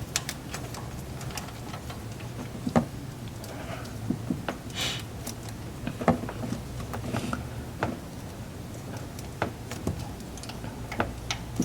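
Scattered sharp clicks and taps of hand tools and car parts being handled during reassembly, with a couple of short scraping rustles, over a steady low hum.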